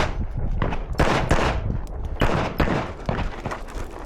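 A string of gunshots during a timed shooting stage: several shots a second in quick groups, with short breaks between them.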